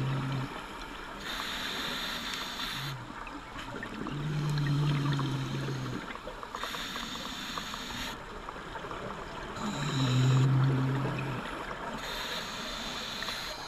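Open-circuit scuba regulator breathing underwater: a hiss from the regulator on each inhale alternates with a louder low bubbling rumble from the exhaled bubbles, three breaths about five seconds apart.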